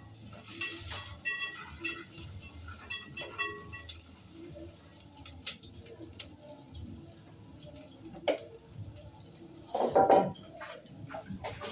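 Liquid sloshing in a cooking pot, with light clinks and knocks, and a louder clatter about ten seconds in.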